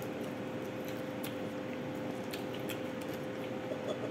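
Quiet indoor room tone with a steady electrical hum, and a few faint soft clicks from someone chewing and eating by hand from a bowl.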